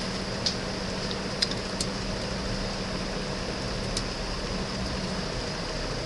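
Steady low hum and hiss of background room noise, with a few faint, short clicks.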